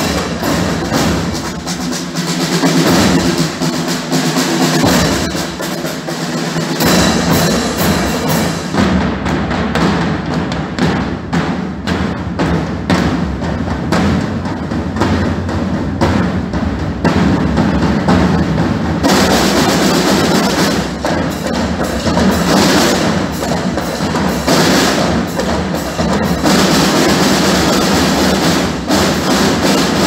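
A troupe of drummers playing side drums together in fast, dense strokes and rolls, with clashing hand cymbals. The playing fills out in the low end about seven seconds in and grows brighter and louder again about two-thirds of the way through.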